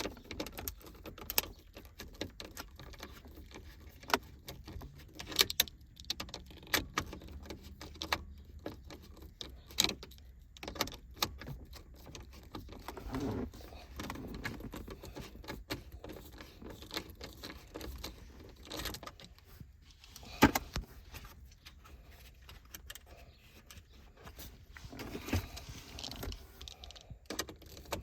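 Irregular metallic clicks, taps and rattles of a 7mm socket driver being worked on a bolt of a car's AC control module in the dashboard, with tool-handling knocks between.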